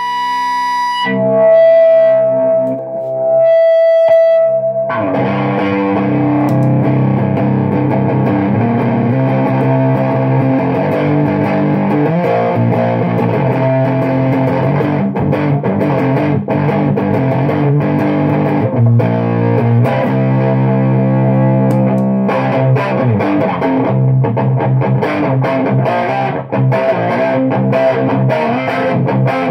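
Electric guitar played through an EnchanterFX Portal Fuzz Deluxe fuzz pedal into a small Orange-style amp set clean. A long, sustained high note rings for the first few seconds, then thick fuzzed chords and riffs are played without a break.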